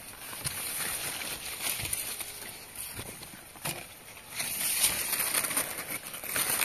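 Corn leaves rustling and footsteps as someone pushes through a cornfield carrying a pumpkin, with a few scattered knocks. About two-thirds of the way in, a pumpkin knocks against a wooden crate as it is set down, and the rustling turns louder and denser while the pumpkins are handled.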